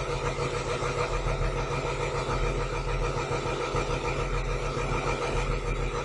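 Diesel engine of a Kato 25-ton truck crane running steadily while the crane is operated, an even low beat with a steady whine over it.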